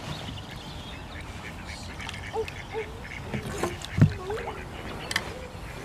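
Ducks quacking in a series of short calls, with a single sharp knock about four seconds in.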